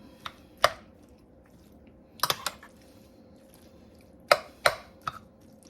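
Kitchen handling noise: a few sharp taps and clicks, some close together in quick runs, as utensils and ingredients are worked in a casserole dish.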